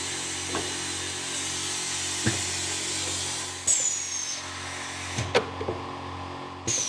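Automated keycap machine running: a steady motor hum with hiss as it holds the keycaps by suction and sets them onto the keyboard barebone. A few sharp clicks come through it, and twice a short high whistle falls in pitch, once near the middle and once near the end.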